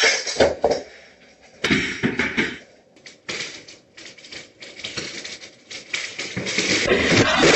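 Ceramic floor tiles cracking and popping up off the floor as they buckle (tile tenting): sharp cracks near the start and again about two seconds in, scattered ticks, then a dense crackling that grows louder over the last second or so.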